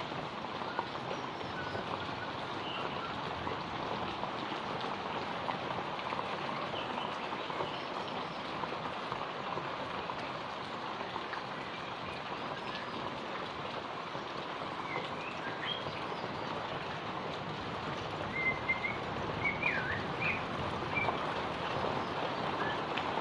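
Heavy rain falling steadily, a dense even hiss of rain on surfaces, with a few short bird chirps in the last third.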